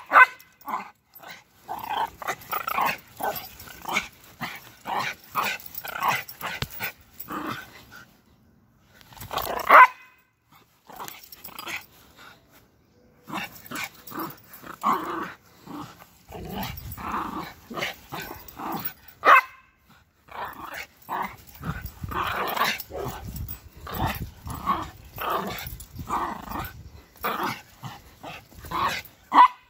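Small shaggy dog growling and yapping in play while it bites at a shoe and its laces. The sound comes in short bursts about twice a second, with a few louder barks.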